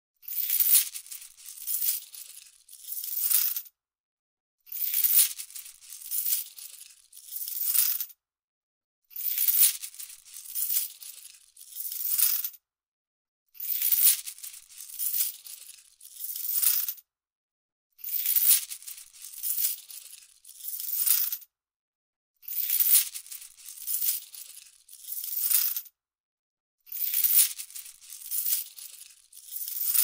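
Money sound effect of coins shaken and rattling, in a short run of three or four crackly shakes. The same run repeats about every four and a half seconds with a brief silence between.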